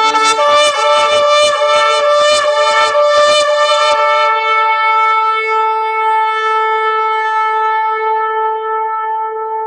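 A shofar (ram's horn) blast. It opens on a brief low note, jumps up and sounds rough and pulsing for the first few seconds, then settles into one long, steady held note.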